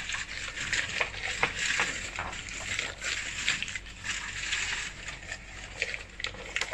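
Crumpled newspaper crinkling and rustling as it is pulled out of a glazed ceramic jar, where it was stuffed as padding for travel, with many small irregular crackles.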